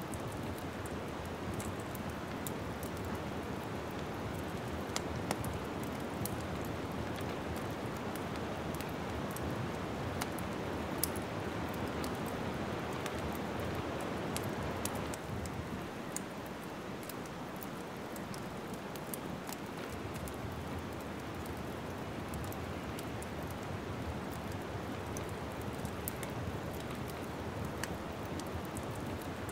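Wood fire crackling: a steady hiss with many small sharp pops and snaps at irregular moments.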